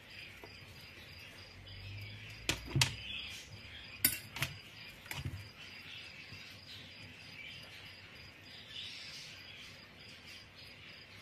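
Knife and metal cake server cutting through a baked potato roll in a metal baking tray: a handful of sharp clinks and knocks as the blade and server strike the tray, bunched in the first half, over a faint high hiss.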